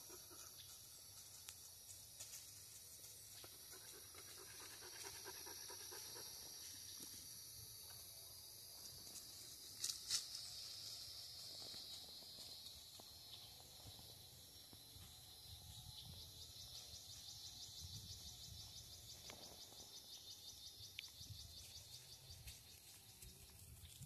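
Faint insects buzzing in a steady high hiss that turns into a fine rapid pulsing in the second half, with a dog panting and moving about. Two sharp clicks about ten seconds in are the loudest sounds.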